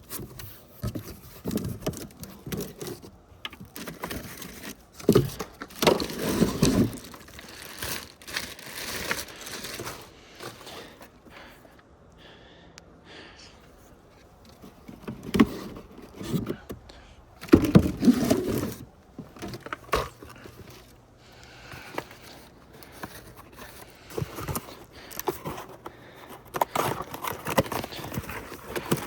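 Handling noises from unboxing and assembling a battery chainsaw: packaging rustling and plastic and metal parts scraping and clicking, in irregular bursts.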